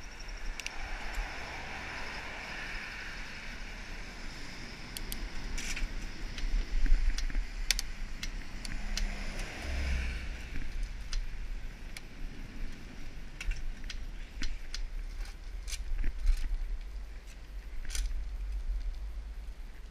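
Bicycle coasting downhill on wet pavement, with wind buffeting the action-camera microphone as a gusty low rumble. Sharp clicks and rattles come from the bike over bumps, and tyre hiss on the wet road swells twice.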